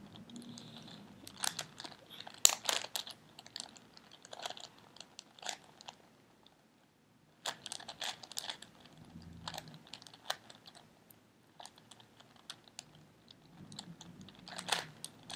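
Plastic 4x4x4 Rubik's cube being turned by hand, its layers clicking and clacking in quick irregular runs, with a short pause about halfway through.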